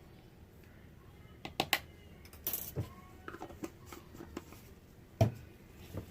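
A handful of sharp clicks and knocks as soapmaking containers and utensils are handled and set down, with a short scrape about two and a half seconds in. The loudest is a single knock about five seconds in.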